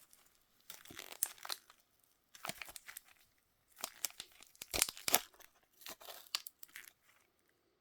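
Toy packaging being torn open and crinkled by hand, in several separate bursts of tearing and rustling that stop shortly before the end.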